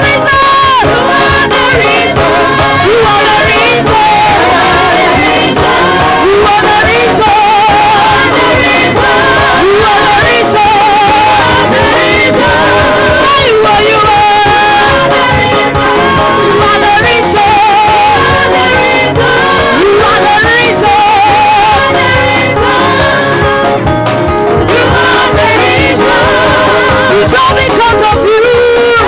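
Live gospel praise and worship music: voices singing with a choir over a full band accompaniment.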